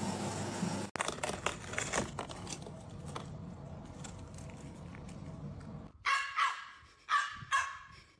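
Four short barks in two pairs, about six seconds in, each falling in pitch, after several seconds of light crinkling and tapping.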